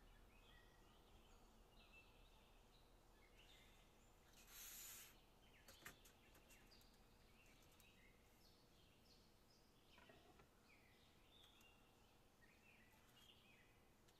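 Near silence with faint bird chirping throughout, a brief hiss about four and a half seconds in, and a sharp click about a second later.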